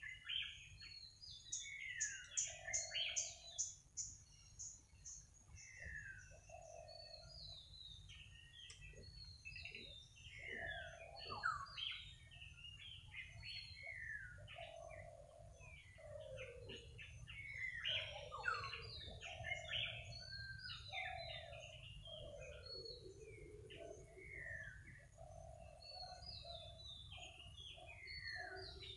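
Several wild birds chirping and calling together: many short, quickly falling chirps, with a lower, longer note repeated every few seconds.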